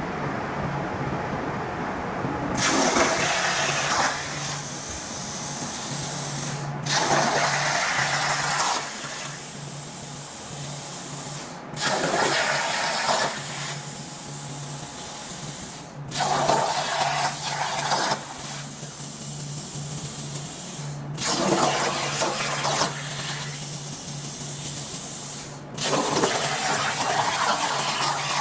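Water rushing into the water bed of a CNC plasma table, a steady splashing hiss over a low hum, breaking off and resuming abruptly every four to five seconds.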